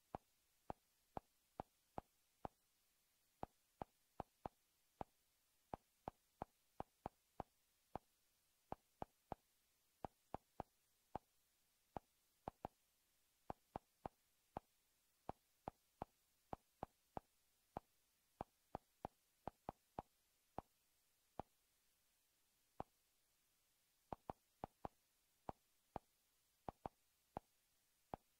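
Google TV interface navigation sounds from a Chromecast with Google TV: a short soft click each time the on-screen selection moves, in uneven runs of about two a second, over near silence.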